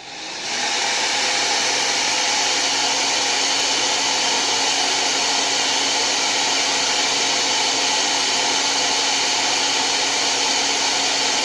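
Handheld hair dryer switched on and running steadily, a loud even blowing with a low motor hum, used to heat an adhesive sticker and soften its glue. It spins up over the first moment and cuts off abruptly at the end.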